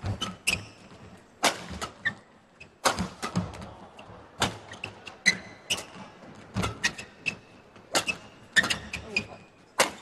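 A badminton rally: sharp cracks of rackets striking the shuttlecock every second or so, with short squeaks of players' shoes on the court mat between them.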